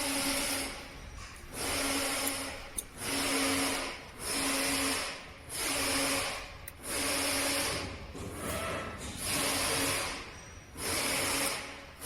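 A screw being driven home with a screwdriver, in short repeated runs of about one a second.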